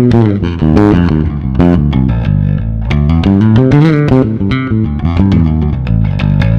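Passive electric bass played through a Fuhrmann bass preamp pedal on its clean setting: a quick line of plucked notes with slides and bends, ending on a held low note.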